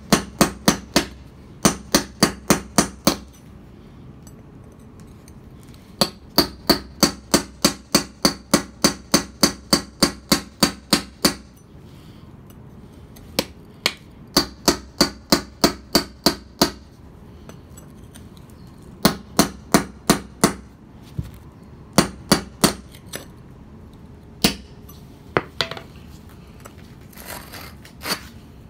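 Hammer blows on a mason's chisel held against a paving stone, cutting the stone to size. The sharp, ringing strikes come in quick runs of about three to four a second, with short pauses between the runs, and a brief rasping sound near the end.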